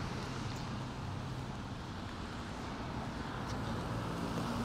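Steady traffic ambience at a wet city intersection: a low engine hum under an even wash of road noise.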